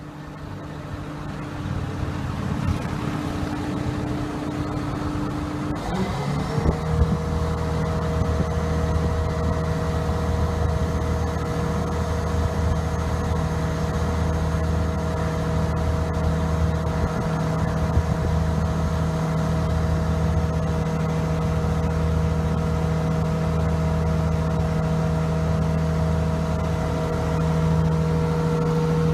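Heavy diesel engine of construction machinery revving up about six seconds in, then running steadily at high revs under load, as an asphalt paver pushes against a wheel loader that has its parking brake on.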